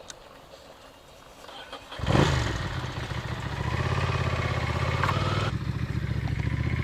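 Ducati Monster's V-twin engine started again after stalling. It catches abruptly about two seconds in, its revs dropping quickly, then settles into a steady idle.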